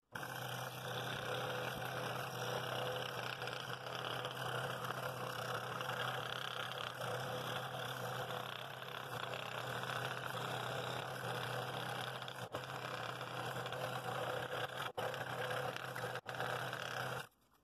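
Scroll saw running and cutting a ring from a segmented wooden bowl blank: a steady motor hum under the even buzz of the reciprocating blade in the wood. It stops abruptly near the end.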